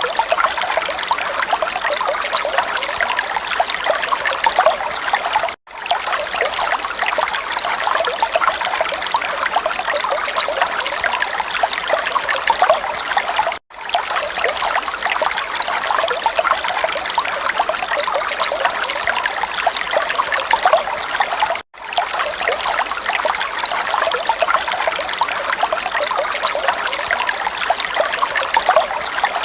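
Water running steadily with a fine trickling texture, broken by three brief drop-outs about eight seconds apart.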